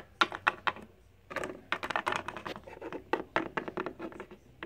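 Hard plastic Littlest Pet Shop figurines tapped and hopped along a hard tabletop by hand: a quick run of small clicking taps, thickest from about a second in until near the end.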